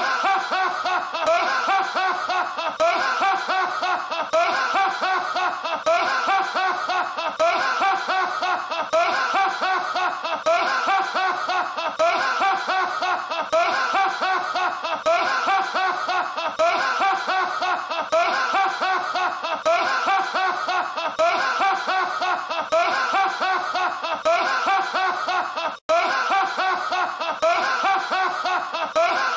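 A man's high-pitched laugh repeating in quick, even bursts, a short laughing clip played on a loop. It cuts out briefly about 26 seconds in as the loop restarts.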